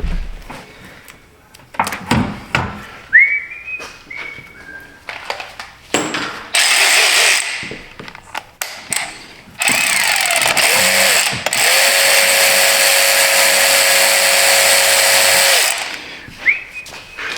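Power tool running in bursts: a short run about six and a half seconds in, then a long steady run of about six seconds starting near ten seconds. Scattered clanks of tools and parts sound in between, with brief whines near three seconds and near the end.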